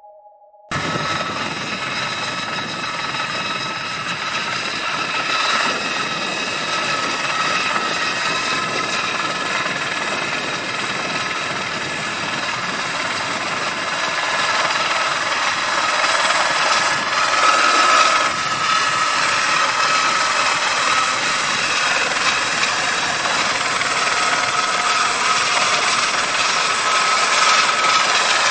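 Helicopter running steadily, a hissing noise with high, steady whine tones from the engine. It starts abruptly about a second in and slowly grows louder.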